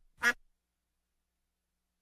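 One short, harsh, quack-like animal call about a quarter of a second in, right after the tail of a matching call; the rest is dead silence.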